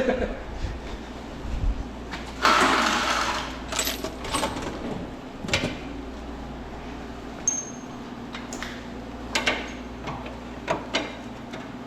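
Scattered metallic clinks and knocks of hand tools and metal parts, with a longer scraping rattle about two and a half seconds in, over a steady low hum.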